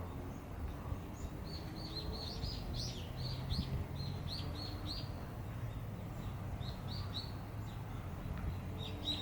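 A small bird chirping: a quick run of short, high notes, about three a second, with a few more after a pause, over a steady low background rumble.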